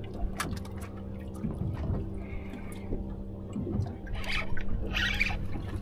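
Sea water lapping and splashing against a boat's hull, with the loudest splashes about four and five seconds in, over a steady low hum. A short high squeak comes about two seconds in.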